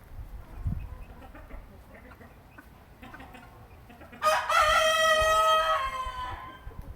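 Padovana (Padua) rooster crowing once, about four seconds in: a single drawn-out crow of about two seconds that drops in pitch at its end.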